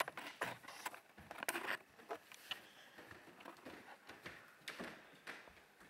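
Faint footsteps and light knocks on a wooden staircase, coming irregularly every half second or so.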